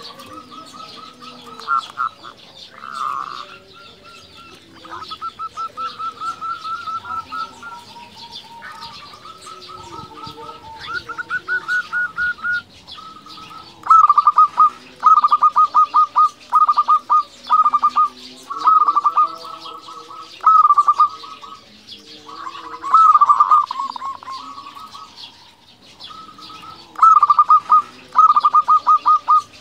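Zebra dove song: repeated runs of rapid, staccato cooing notes, at times overlapping at two slightly different pitches, growing louder about halfway through. Faint chirping of other birds sits behind.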